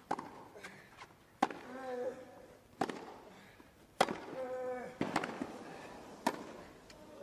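Tennis rally: a ball struck back and forth by rackets, six sharp hits about a second and a quarter apart, several with a player's grunt.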